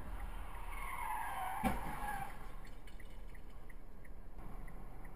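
Car tyres squealing in a skid for about a second and a half, with a single sharp bang of a collision partway through the squeal, over a steady low road rumble.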